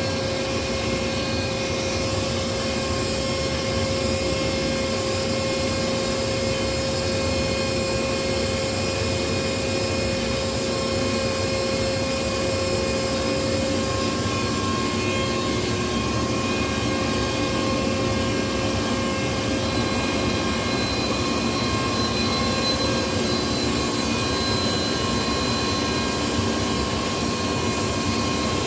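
Hankook VL-20/25 vertical turning lathe running: a steady mechanical drone from its 37 kW main drive and rotating table, with several whining tones. About halfway through, the strongest whine fades and a higher one takes over, as if the table speed had changed.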